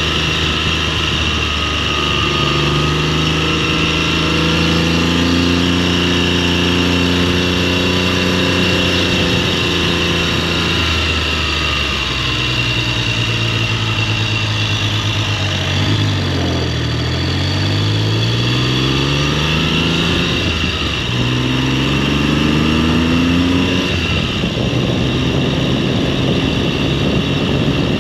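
Triumph Trident's 750 cc three-cylinder engine under way on the road, its pitch climbing as it speeds up and falling back several times, over steady wind and road noise.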